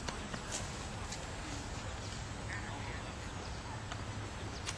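Outdoor ballfield ambience: a steady low rumble with a few faint, distant calls in the middle and a sharp click near the end.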